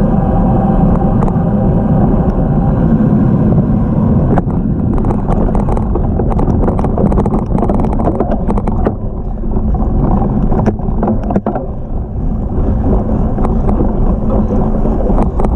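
Riding noise from a cyclocross bike: wind rushing over the handlebar microphone, and a steady hum of knobby tyres rolling on pavement. About four seconds in, the bike runs onto bumpy grass and the sound breaks into a run of clicks and rattles as it bounces over the rough ground.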